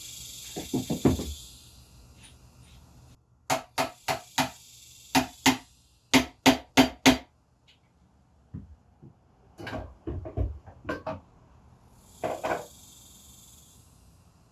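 Hand tools working on a motorcycle handlebar fitting, making sharp clicks and taps in quick runs of several. There are short spells of hiss at the start and again near the end.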